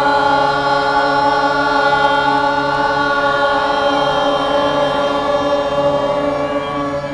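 A long 'Om' chanted and held on one steady pitch, fading away near the end.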